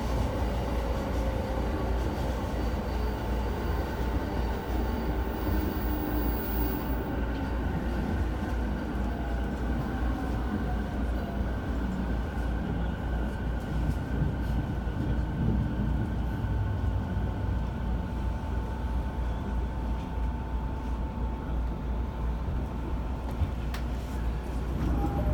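JR E217-series commuter train running, heard from inside the passenger car: a steady rumble of wheels on track, with a faint steady whine above it.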